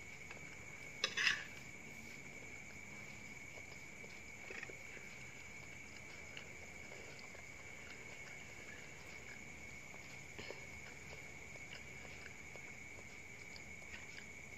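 A spoon clinking and scraping on a plate about a second in, then a few faint single clicks of the spoon, over a faint steady high-pitched hum.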